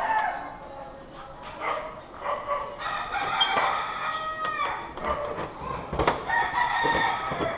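Roosters crowing: two long crows, one about three seconds in and one about six seconds in, with a sharp click between them.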